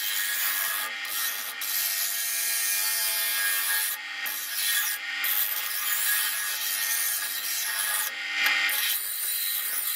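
Double bench grinder's wheel grinding the steel blade of an old meat axe, reshaping it: a steady rasping hiss that breaks off briefly a few times as the blade comes away from the wheel.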